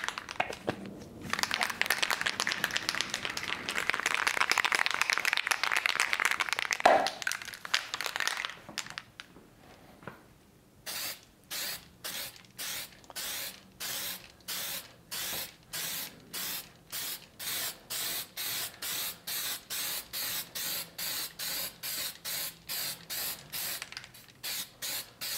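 CerMark laser-marking aerosol can spraying onto glass: a long continuous hiss for the first several seconds, then after a short pause a run of short, evenly spaced spray bursts, about two a second.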